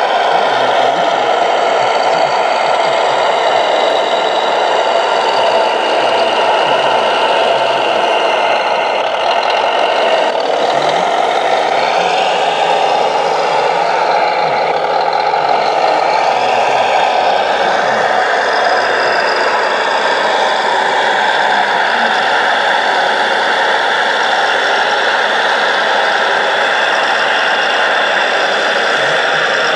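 Simulated diesel engine from the electronic sound module of a radio-controlled Volvo L250G wheel loader model, running steadily; the revs rise and fall around the middle.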